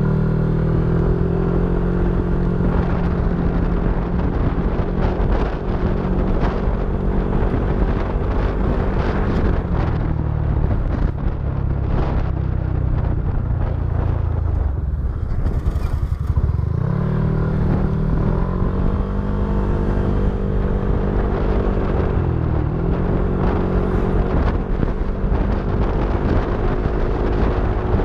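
Yamaha NMAX v3 scooter's single-cylinder engine running through an open TSMP 2.5 aftermarket exhaust, its raw exhaust note loud and held at steady revs. The pitch sags for a few seconds around the middle, picks up again, and dips once briefly later.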